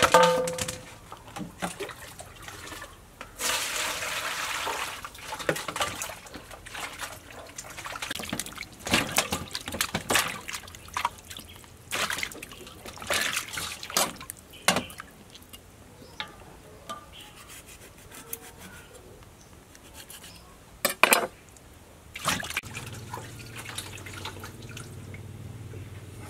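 Water sloshing, splashing and dripping in a metal basin as a whole raw chicken is washed by hand, with scattered clicks and a sharp double knock near the end.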